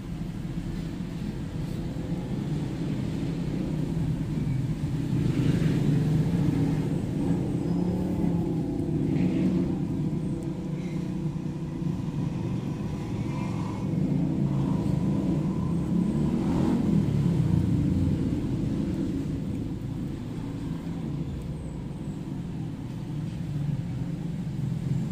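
Low, steady rumble of a motor vehicle, growing louder twice, with a few faint clicks.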